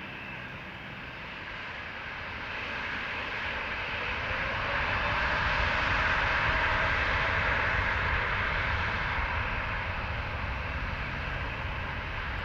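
Boeing 787-8 airliner's jet engines at takeoff power as it starts its takeoff roll, heard from behind. The jet noise swells over the first few seconds, holds loudest through the middle, then eases slightly as the plane draws away, with a faint rising whine about five seconds in.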